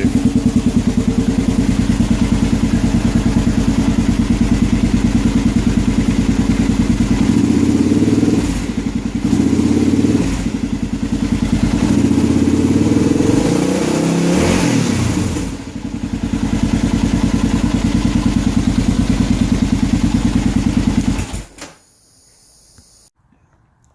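1990 Kawasaki KLR650 Tengai's single-cylinder four-stroke engine running after being brought back to life, with an even pulsing idle. Between about 8 and 16 seconds in, the revs dip and rise a few times, with one clear blip that rises and falls in pitch. The engine sound stops abruptly a few seconds before the end.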